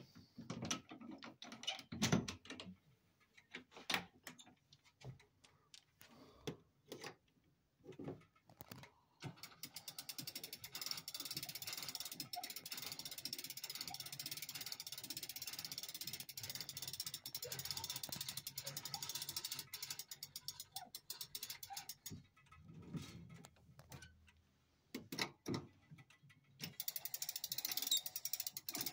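Grandfather clock with cable-hung weights being handled and wound. A few scattered knocks come first, then the winding ratchet clicks rapidly and steadily for a long stretch, and again briefly near the end.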